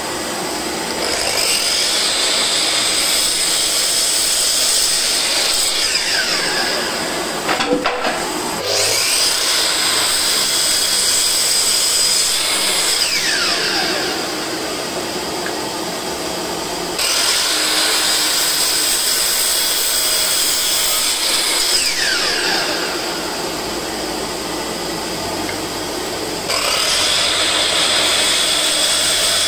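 Makita LS1219L 12-inch, 1800 W sliding compound miter saw making cuts in wood: the motor starts with a high whine and cuts through the board. After each cut it winds down, the whine falling in pitch. This happens in four runs.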